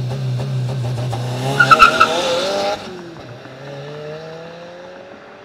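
2022+ Subaru WRX's turbocharged 2.4-litre flat-four held at steady revs by launch control, then launching with a short, loud tyre squeal about a second and a half in and revving up as it pulls away. Near three seconds the engine note drops, then rises again as the car accelerates off down the road.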